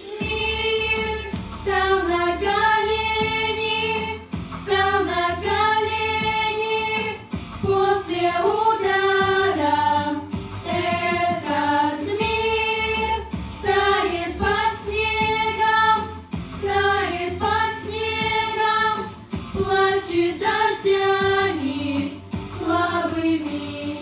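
A group of girls singing a slow melody together over a backing track, in phrases of about two seconds with short breaks between them.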